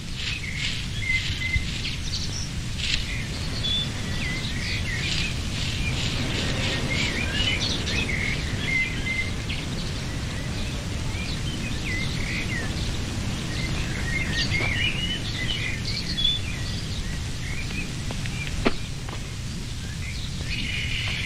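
Birds chirping and singing over a steady low background noise, with one brief click near the end.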